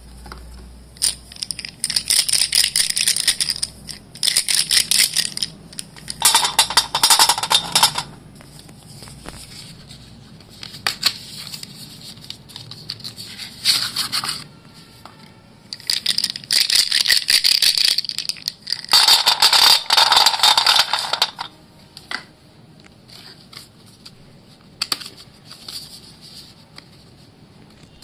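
White dustless school chalk being crumbled and crushed, in bursts of crunchy crackling a second or two long, about seven in all, separated by quieter pauses with scattered small clicks.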